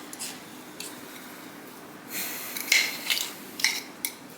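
A utensil scraping and clicking against a bowl while soft cinnamon, brown-sugar and butter filling is scooped out. It is quiet at first, with a few short scrapes and sharp clicks in the second half.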